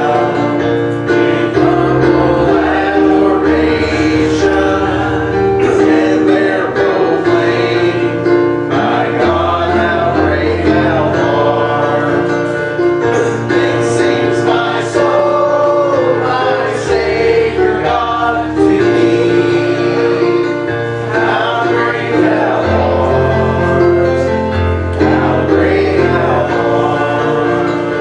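A choir singing a gospel song over instrumental accompaniment, with held bass notes that change every few seconds.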